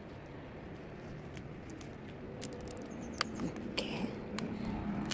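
Scattered light clicks and rustles of latex-gloved fingers handling a freshly picked young lacquer tree shoot and its branch, the sharpest clicks a little after three seconds and at the very end. A faint low hum runs underneath.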